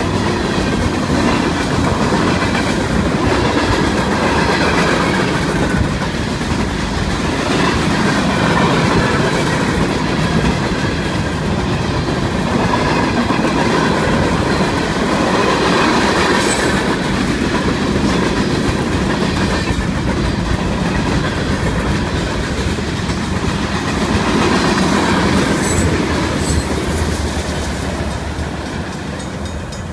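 Freight cars of a mixed manifest train (gondolas, boxcars, a tank car and covered hoppers) rolling past at speed. Their wheels make a steady rumble and clickety-clack over the rail joints, which eases slightly near the end as the last cars go by.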